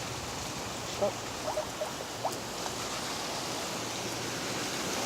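Steady rain falling, with a few short faint squeaks about one to two and a half seconds in.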